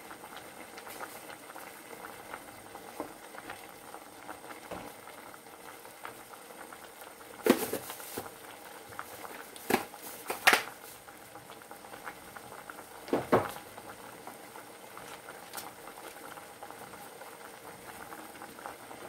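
Potato stew simmering in a little water in a small metal pot on a gas burner, bubbling with a steady fine crackle. A few sharper pops about halfway through.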